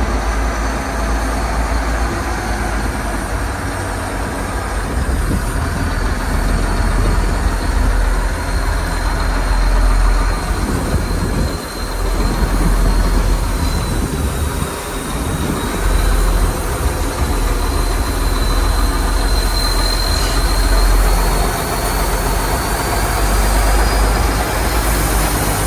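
Yard jockey (terminal tractor) diesel engine running, heard from the cab, with a steady low rumble and a thin high whine that drifts slowly up and down in pitch.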